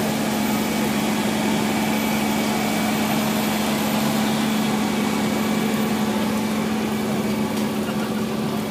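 Large Fendt tractor's diesel engine running steadily under load as it pulls a Väderstad Swift cultivator through the soil, with a constant low drone.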